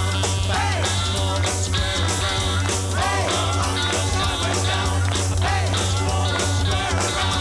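Rock song with singing and a steady drum beat.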